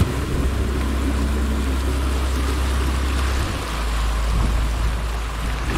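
Sightseeing boat's engine running with a steady low drone, its note dropping a little about three and a half seconds in, over the rush of water along the hull.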